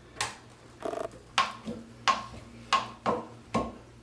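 A series of sharp clicks and knocks, about seven of them, irregularly spaced roughly every half second, from the toilet seat and its mounting screw being worked back into place over a bidet attachment.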